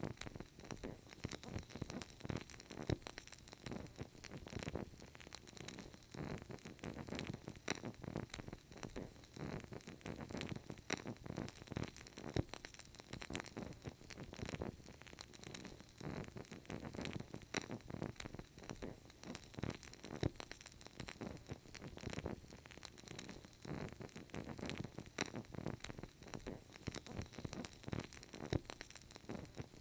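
Burning candle flame crackling softly, a steady stream of tiny irregular pops and snaps.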